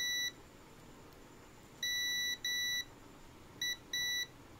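Digital multimeter in continuity mode giving five high, steady beeps of uneven length, some short chirps and some half-second tones, each time its probes find a low-resistance path across a component on an SSD circuit board being checked for a shorted capacitor.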